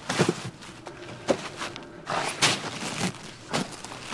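Mesh-netted napa cabbages being handled: irregular rustling of the plastic netting and leaves with dull thuds as heads are gripped, lifted and set down on a stack.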